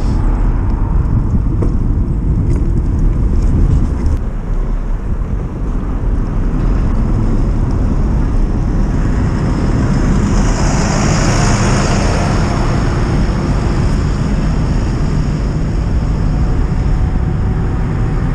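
Wind buffeting the microphone of a camera riding on a moving bicycle, with road and tyre noise underneath. A louder hissing swell builds and fades about ten to thirteen seconds in.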